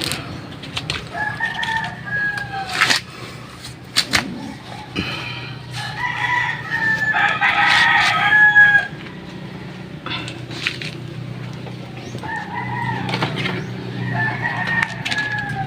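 Rooster crowing several times, the loudest crow about six to nine seconds in, with sharp clicks and knocks and a steady low hum underneath.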